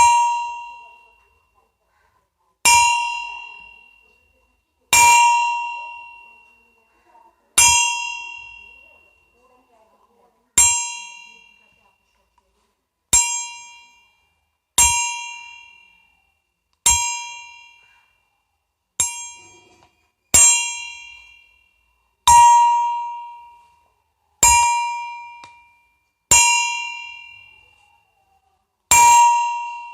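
A bell struck over and over, about fourteen times at an uneven pace of one strike every two seconds or so. Each strike gives a clear, bright ring that dies away within a second or two.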